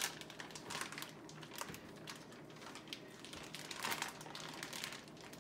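A plastic meat-packaging bag crinkling as it is handled, in irregular crackles.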